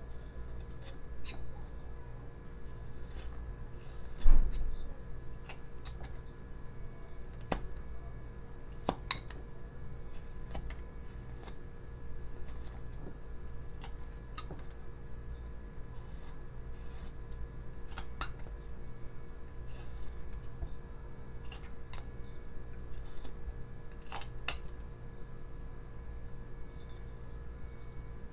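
Carving knife slicing shavings off a basswood block: short, irregular snicks and scrapes as the blade cuts through the wood. There is a sharper knock about four seconds in, over a steady low hum.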